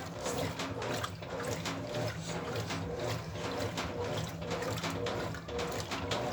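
Brastemp Ative 9 kg washing machine in its wash cycle: water sloshing and splashing in the tub with frequent small splashes, over a steady low hum.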